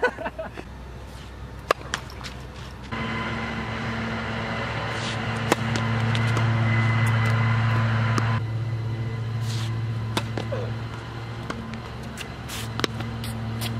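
Tennis balls struck by rackets in a rally, a few sharp pocks several seconds apart, over a steady engine drone. The drone starts about three seconds in, is loudest in the middle, then eases off.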